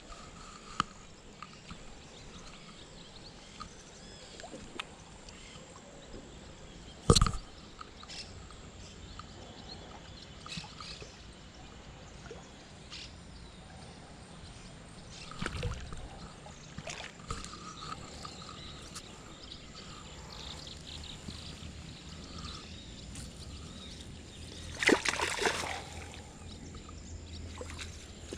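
Faint outdoor background by the water, with light sloshing and a few sharp knocks, the loudest about seven seconds in, and a short burst of rustling or splashing near the end.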